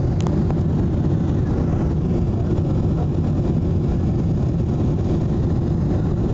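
Steady low rumble of a Boeing 777 airliner in flight, engine and airflow noise heard inside the passenger cabin.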